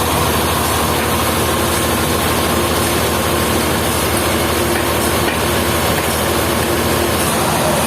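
Sawmill machinery running steadily: a loud, even mechanical drone with a faint steady whine, without pauses or knocks.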